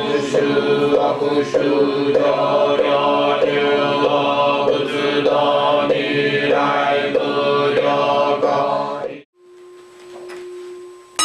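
Nichiren Buddhist chanting, a steady rhythmic recitation at about two beats a second with a few sharp knocks. It breaks off abruptly about nine seconds in, leaving a faint steady tone.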